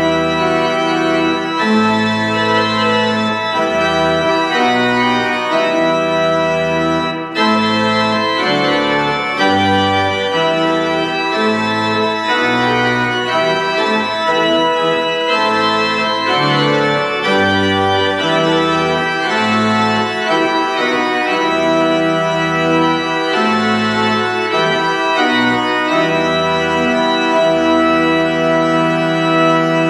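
Pipe organ playing a slow piece of sustained chords over a bass line that moves note by note, with a brief break in the sound about seven seconds in.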